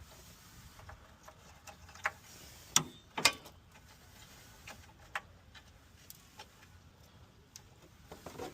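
Scattered light clicks and knocks of car parts being handled and fitted during a radiator install, with two sharper knocks about three seconds in.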